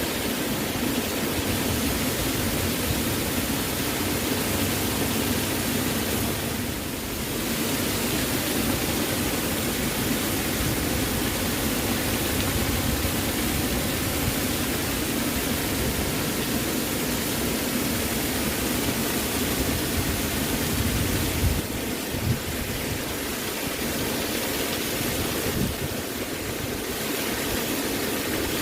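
Waterfall: a steady, full rush of falling water that thins out briefly a few times.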